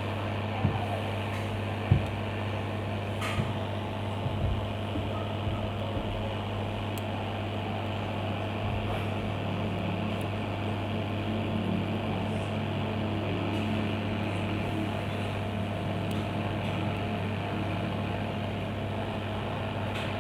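Hot-air rework station blowing steadily, a fan hum with rushing air, heating a replacement tantalum capacitor to reflow its solder onto a laptop motherboard. A few light clicks in the first few seconds.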